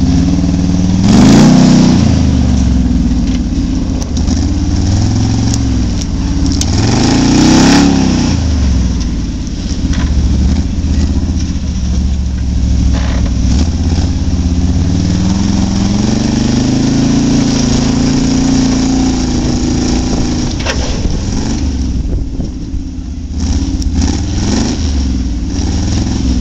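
Old Chevy pickup's engine revving hard under load as the truck ploughs through deep snow and bogs down, getting stuck. The revs surge sharply twice in the first eight seconds, then climb more slowly and fall back, with a short dip near the end.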